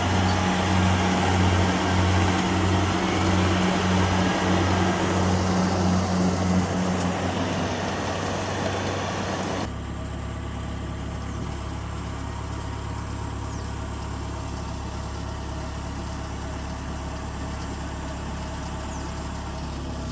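Kubota combine harvester running, its engine noise carrying a low throb that pulses a little under twice a second. About ten seconds in, the sound changes abruptly to a quieter, steady low hum.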